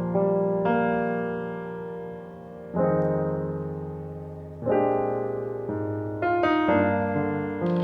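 Background music: a soft piano playing slow chords, a new chord struck about every two seconds and fading away before the next.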